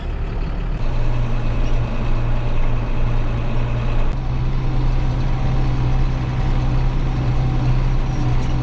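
John Deere 7810 tractor's six-cylinder diesel engine running steadily under way, heard from the cab; about four seconds in, the engine note steps up slightly in pitch.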